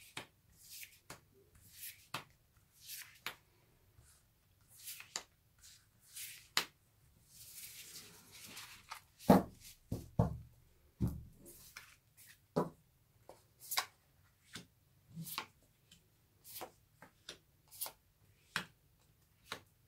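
Tarot cards handled on a cloth-covered table: single cards pulled from a spread-out fan with soft snaps and slides, a rustling sweep about eight seconds in, then a few heavier knocks as the deck is squared against the table. After that, cards are laid down one at a time with light taps.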